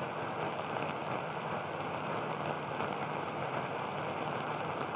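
Steady, even hiss of noise with no tone or rhythm, like a rain or static bed.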